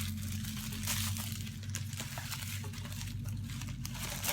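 Plastic packaging crinkling and rustling in irregular spurts as it is handled, over a steady low hum.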